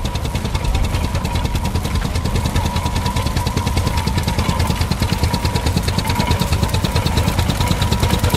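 Early petrol engine of an Ivel agricultural tractor running with a fast, even beat while the tractor tows a binder through standing oats.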